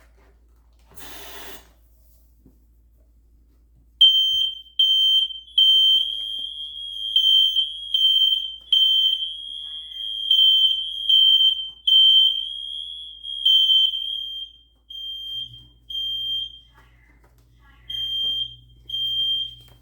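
A short hiss about a second in, typical of aerosol test smoke being sprayed at the alarm. From about four seconds in, a smoke alarm sounds: a loud, high-pitched beep in quick pulses that later falls into groups of three with pauses, the temporal-three alarm pattern, set off by the test smoke.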